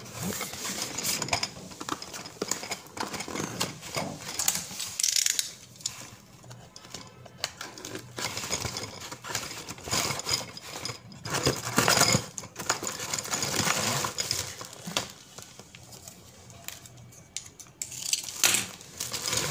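Cardboard and plastic packaging rustling and scraping as a light stand is pulled out of its long cardboard box, with irregular clicks and knocks from the box and the stand's parts.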